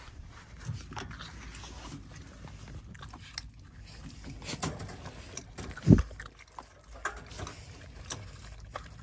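A dog eating stewed meat from a bowl: irregular wet chewing and smacking with small clicks, and a single louder knock about six seconds in.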